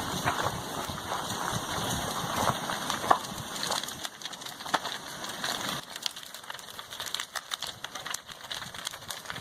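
Crackling and popping of a wooden house burning as lava engulfs it, over a steady hiss, easing off a little about six seconds in.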